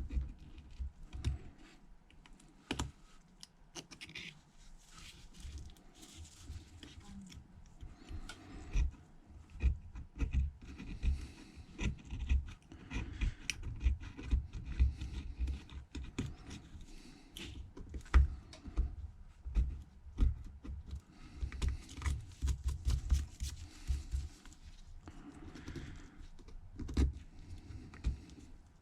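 Irregular clicking, tapping and scraping of a small hand tool working broken back glass away from an iPhone XS Max's camera bezel, with stretches of scraping about twelve seconds in and again about twenty-two seconds in.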